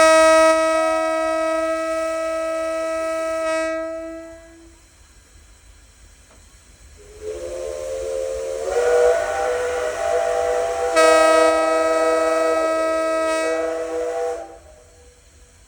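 A diesel locomotive's air horn blows one long note for about four seconds. About seven seconds in, a steam locomotive's chime whistle sounds a chord of several notes over hissing steam. Near the end the horn sounds again together with the whistle, and both cut off at once: the two engines' signals for departure.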